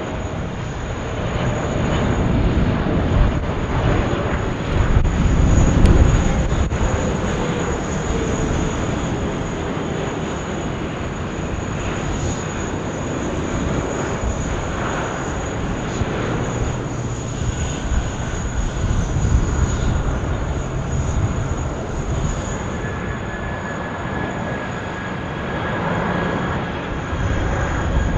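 Boeing 777 jet airliner landing, its engines giving a steady, dense rumble that swells to its loudest about six seconds in.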